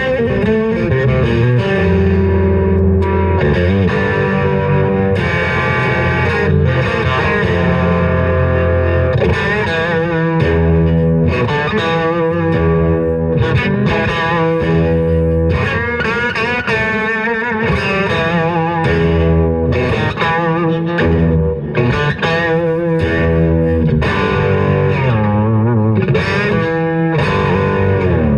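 Distorted electric guitar, fitted with a Guyker tremolo bridge and locking tuners, played continuously: chords and single-note lines, with the pitch wavering in places.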